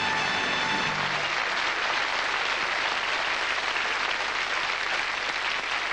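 Studio audience applauding steadily, with a music cue ending about a second in.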